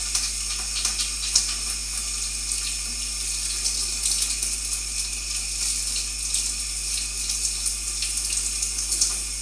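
Tap water running into a sink and splashing as a 3D printer's dirty fan filter is washed under it with soap. The flow is steady, with small irregular splashes as the filter is worked by hand.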